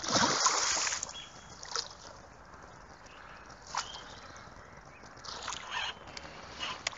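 A large hooked pike thrashing at the water's surface: one loud splash in the first second, then a few short, quieter splashes.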